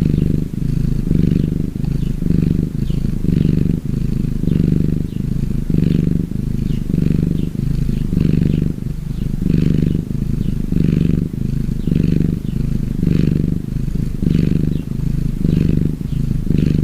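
Domestic cat purring loudly and steadily, the purr swelling and easing in a regular rhythm with its breathing.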